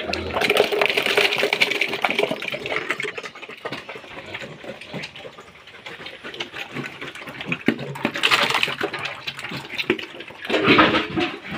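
Pigs eating wet feed from a trough: a busy run of irregular wet slurping and chewing clicks.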